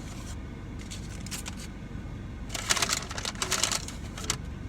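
Plastic food container crackling and clicking as its lid is pried open, in two dense bursts of crinkles about halfway through and a short snap near the end. A steady low hum of blowing air conditioning runs underneath.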